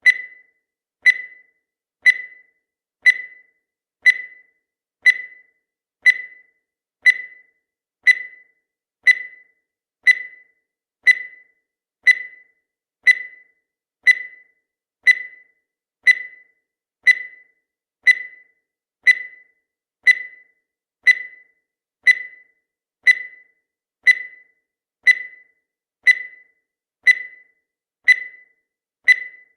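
Countdown timer sound effect: a short, high beep once every second, each cut short and fading quickly, marking off the seconds.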